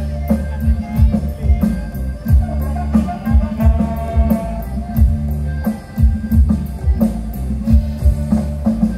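Loud dance music through large outdoor sound-system speaker stacks: heavy bass with a deep kick drum that drops in pitch on each hit, about two to three hits a second, under a melody line.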